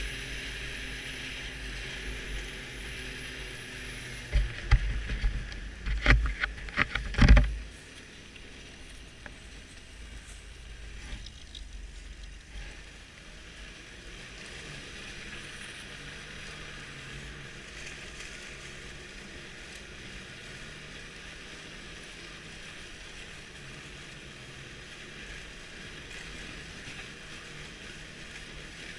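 Snowmobile engine and track running steadily along a packed snow trail. A burst of loud thumps and knocks comes between about four and eight seconds in, then quieter, steady running.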